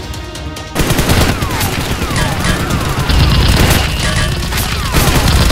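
Rapid automatic gunfire sound effects, a dense fusillade that starts about a second in, with several falling whistles mixed in, laid over Nerf blasters being fired.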